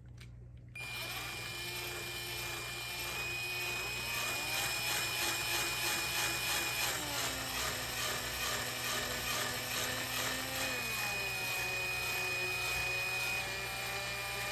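Small cordless drill running a thin twist bit in the nozzle of a clogged super glue tube to clear it. The motor starts about a second in, runs steadily with its pitch stepping down and back up a few times as the trigger is eased and squeezed, and stops just before the end.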